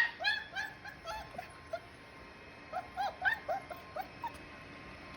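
Four-week-old German Shepherd puppies whimpering and yipping in short, high squeals: a quick run at the start, then another cluster about three seconds in.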